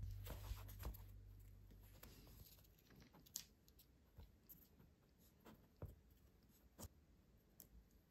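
Faint handling sounds of hands working a hand-sewn stack of kraft-paper signatures and its thread: scattered soft clicks and rustles of paper and card, a few of them a little sharper. The tail of background music fades out in the first two seconds.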